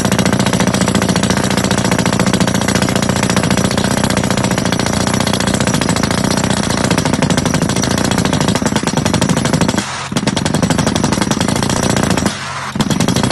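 Drill rig running a percussive hammer drill, a very rapid steady hammering with brief breaks about ten seconds in and again near the end. The drill string is turned by a Yonda YDR30A hydraulic rotary head.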